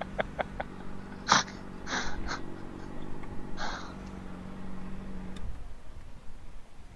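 Parked sportbike's engine idling with a steady low hum, then switched off about five and a half seconds in, leaving it quiet. A few short clicks and rustles of handling sound over the idle in the first four seconds.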